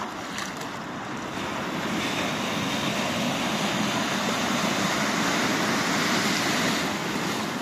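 Small sea waves washing in over the shallows and breaking at the water's edge: a steady rush of surf that swells about a second and a half in.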